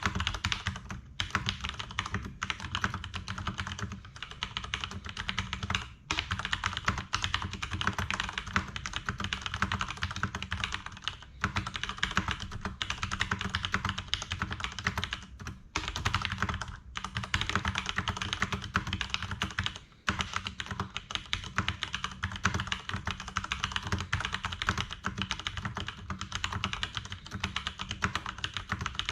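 Fast continuous typing on a Leopold FC750R PD mechanical keyboard with Cherry MX Brown tactile switches: rapid keystroke clacks, broken by a few short pauses.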